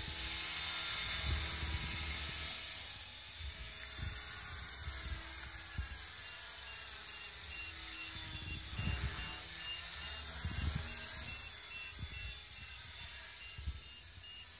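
Align T-Rex 450 Pro DFC electric RC helicopter in flight: the high whine of its motor and rotors, shifting up and down in pitch as it manoeuvres, loudest in the first couple of seconds and fainter as it climbs away.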